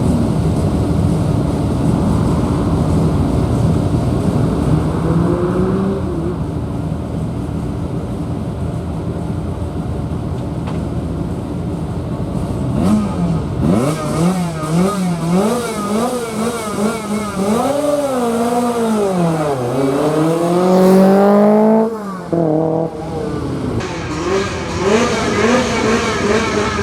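Lancia Rally 037's supercharged four-cylinder engine: first a steady low drone, then from about halfway revving hard up and down through the gears, with a sharp lift-off about four-fifths of the way through before it pulls again.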